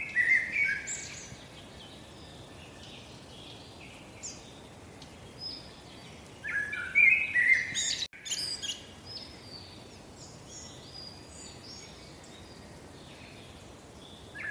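Songbirds chirping in short bursts of song over a faint steady hiss: one burst right at the start, a second louder one about six and a half seconds in, and scattered single chirps between them.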